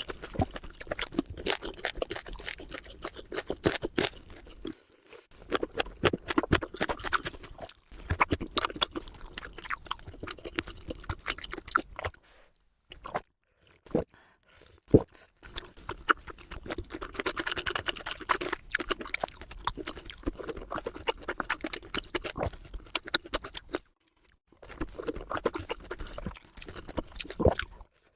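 Close-miked eating: crunchy bites and chewing with crackly, clicky mouth sounds, in several bursts separated by short pauses.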